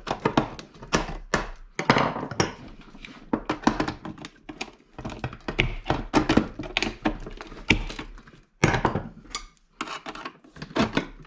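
A screwdriver and tin snips prying and cutting metal D-sub connectors loose from a circuit board: a run of irregular sharp clicks and knocks of metal on metal and board.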